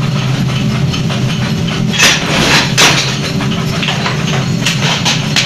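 Steady low hum of running forge-shop machinery, with two loud metal clanks about two and three seconds in and two lighter clanks near the end.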